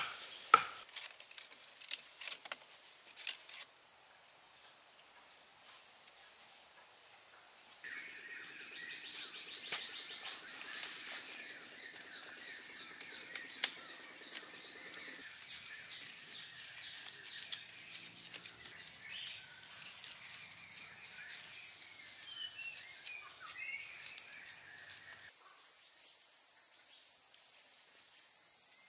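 Forest insects droning in a steady high buzz, clearly louder for the last few seconds. A few sharp knocks at the very start as a wooden stake is tapped into the ground, and soft rustling and clicking of sticks being handled.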